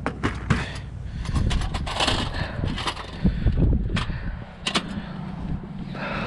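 Gusty wind rumbling on the microphone, with a few sharp clicks and knocks as a portable one-burner butane stove is handled and its hinged canister cover opened.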